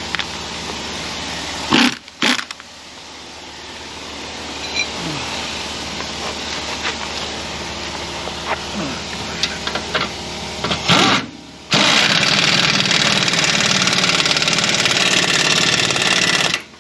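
Earthquake XT air impact wrench hammering on suspension bolts as they are tightened: two short bursts about two seconds in, a few more taps around eleven seconds, then one long continuous run of about five seconds.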